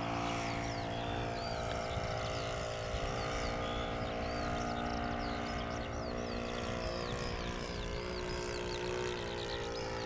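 Radio-controlled Seagull Gipsy Moth model biplane's engine running steadily in flight, an even drone that holds its pitch. Birds chirp repeatedly over it.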